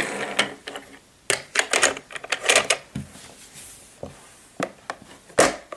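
Plastic Fisher-Price Wheelies toy cars and a hinged plastic toy garage door handled on a wooden tabletop: a toy car rolling briefly on the wood, then a run of quick plastic clicks and knocks as the cars and door are moved.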